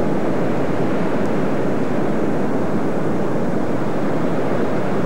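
Steady roar of ocean surf breaking on a rocky shore, an even rushing noise with no let-up.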